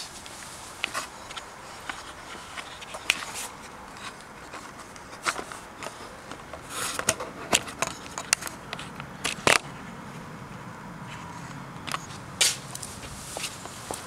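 Handling noise from a hand-held phone camera being moved about: irregular sharp clicks and scrapes over a faint steady background hum, loudest in a cluster around the middle and once more near the end.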